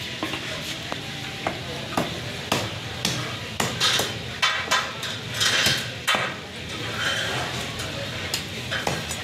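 Knife scraping scales off a fish on a wooden chopping block: irregular rasping strokes with sharp taps of the blade against the wood.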